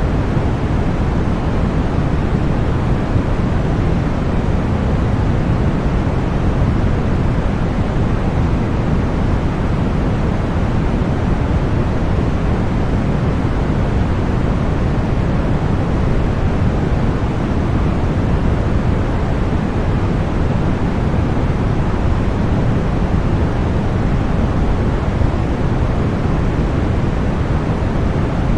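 Continuous synthetic deep white noise: a steady, unchanging rush weighted toward the low end, with no events in it.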